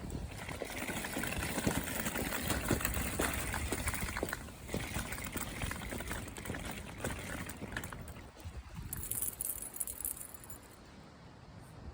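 A Bichon Frise on a walk: a busy rustle with small clicks and rattles, then about nine seconds in a short burst of high jingling as the dog shakes itself, its collar tags rattling, before it goes quieter.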